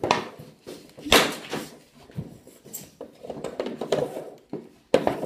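Hockey sticks shooting pucks off a plastic shooting pad: a run of sharp cracks and clacks of stick blade on puck and pucks striking hard surfaces, ringing in a small room, the loudest crack about a second in.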